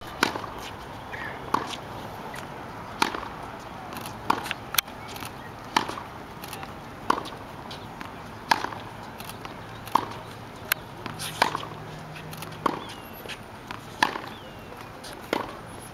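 Tennis balls struck off racket strings in a steady practice rally, one sharp hit about every second and a half, with fainter knocks between.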